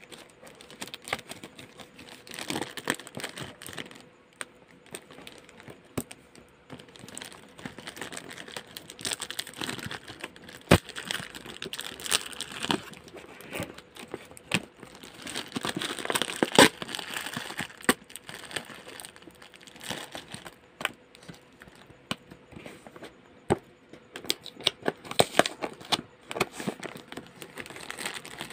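Clear plastic wrap crinkling and crackling as hands pull and tear it off a cardboard shipping box, with many irregular sharp clicks. It is busiest about halfway through.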